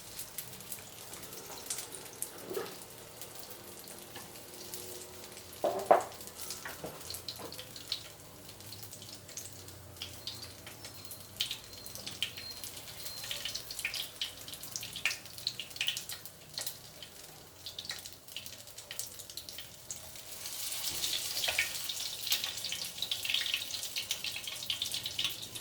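Tofu frying in shallow oil in a pan: a steady crackle of small pops and spits, growing denser and louder about 20 seconds in. A single sharp knock about 6 seconds in.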